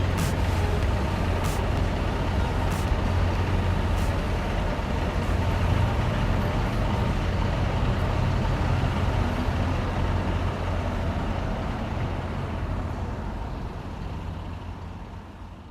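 City road traffic: a steady low rumble of heavy vehicles, with a few sharp clicks about a second apart in the first few seconds. It fades out near the end.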